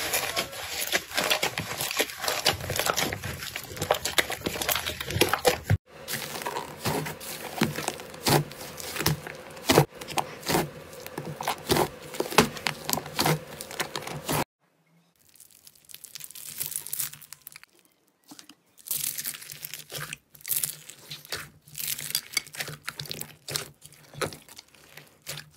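Hands squeezing and pressing slime in a bowl, making dense, irregular crackling, popping and squelching clicks. The sound breaks off sharply about six seconds in and again about halfway, where the clips change, and is sparser after that.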